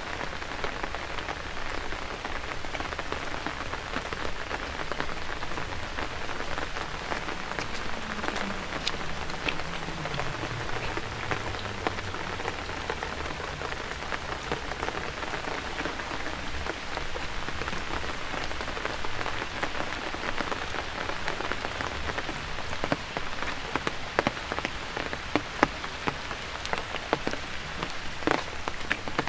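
Steady rain falling on wet paving, with sharper, louder close drop strikes growing more frequent toward the end.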